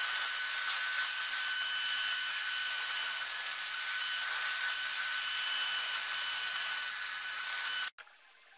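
A CNC router spindle whining at high speed while its small end mill cuts acrylic. Louder, higher-pitched stretches come and go as the cutter works through the plastic. The sound cuts off abruptly near the end.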